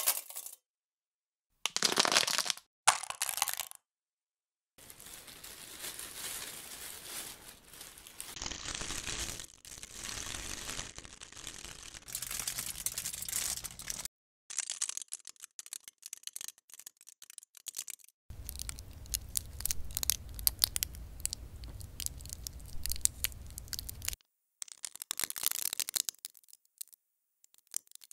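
Crackling, crinkling sounds of thin aluminium crumpling: first a soda can being crushed, then, from about halfway through, aluminium foil being crumpled. These are real recordings set against physics-based synthesized versions of the same crumpling.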